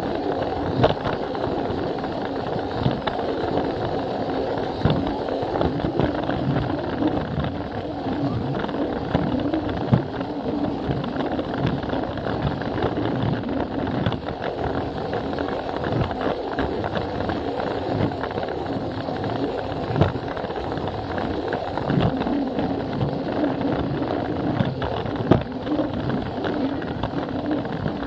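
Plarail toy train's small battery motor whirring steadily, with its plastic wheels clicking irregularly over the track joints, heard from a camera riding on the train.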